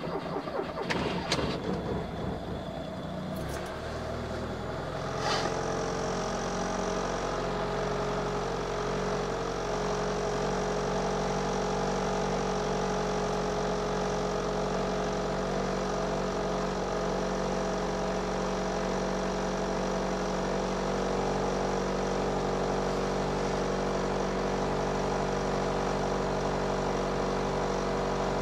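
Car engine running just after a cold start in deep frost. For the first few seconds it runs rough and uneven, then about five seconds in it settles into a steady fast cold idle of around 1,900 rpm.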